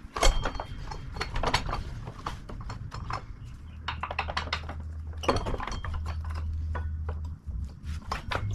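Metal tools and parts clinking and clanking in an irregular run of sharp clicks and knocks, with a low hum that comes and goes, typical of hand work on a motorcycle wheel and tire.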